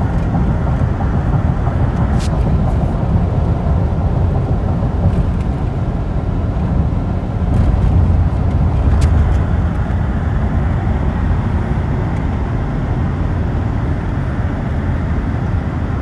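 Road noise of a car driving at highway speed, heard from inside the cabin: a steady low rumble that swells slightly about halfway through.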